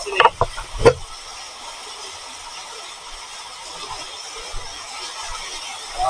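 Steady rush of water flowing along a rock-cut irrigation channel inside a tunnel. A few brief, sharp sounds come in the first second.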